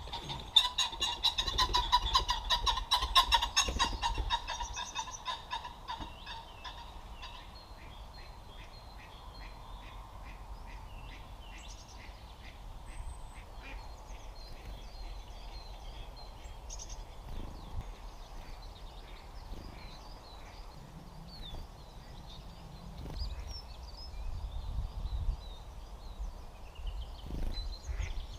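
Wild birds calling: a loud, fast, rattling run of repeated calls that fades out by about six seconds in, followed by quieter scattered chirps and birdsong.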